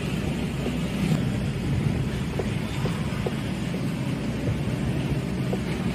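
Steady low rumble and hum of a moving vehicle in city traffic, engine and road noise running evenly.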